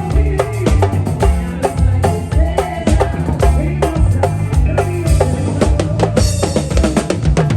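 Upbeat music with a steady drum-kit beat, bass drum and snare over a bass line and melody.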